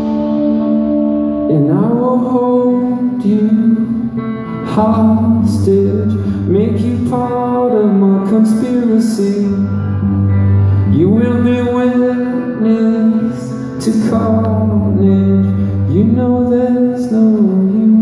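A live band playing a passage with electric guitars and bass, in which a sliding note rises and bends every couple of seconds over sustained chords.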